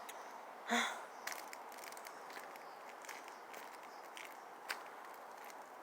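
Slow, careful footsteps on ice-glazed asphalt: a few faint crunches and scuffs over a steady low hiss. A brief voice sound comes just under a second in.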